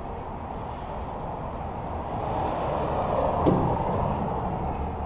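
A road vehicle passing by, swelling to its loudest about three and a half seconds in and then fading, over a steady low rumble.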